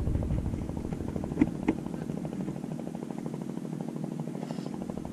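Boat engine idling with a rapid, steady putter, and two short clicks about one and a half seconds in.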